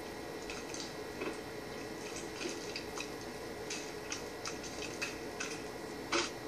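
Irregular soft wet clicks and squelches of a heap of sticky food being pressed by hand into a glass jar, heard through a TV's speaker over a faint steady hum. A louder click comes near the end.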